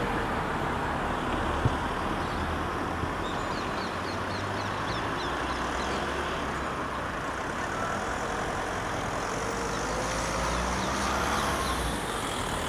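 Outdoor urban ambience: a steady hum of road traffic, with one sharp knock about a second and a half in.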